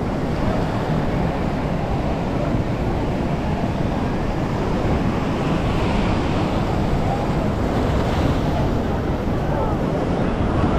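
Steady rush of ocean surf mixed with wind buffeting the microphone, with faint scattered voices of beachgoers in the background.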